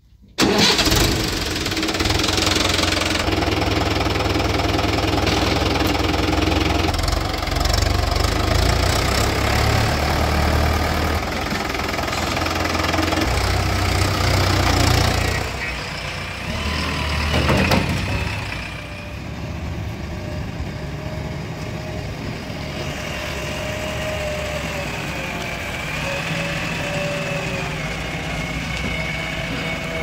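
A tractor's diesel engine catches with a sudden start about half a second in and runs loud and steady, heard close to the engine bay and cooling fan. From about 18 s a JCB 3DX backhoe loader's diesel engine runs more quietly and steadily, with a faint wavering whine.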